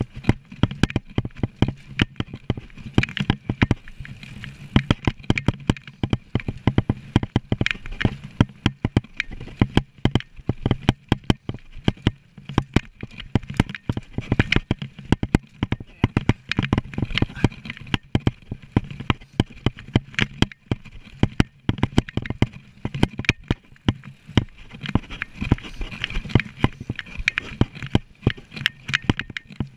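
Mountain bike ridden over a rough dirt trail, with a dense, irregular clatter of knocks and rattles from the bike and its mounts jolting over bumps.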